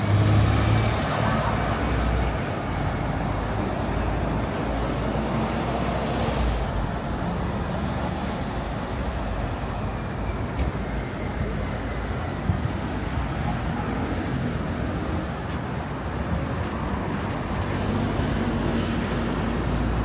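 City street traffic: a steady wash of road noise from passing vehicles, with a nearby engine's low hum loudest at the start and again near the end.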